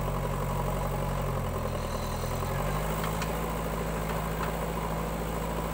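Diesel engine of a JCB backhoe loader running steadily while its backhoe arm digs and lifts a bucket of earth. The engine note sags briefly under hydraulic load about a second and a half in, then recovers.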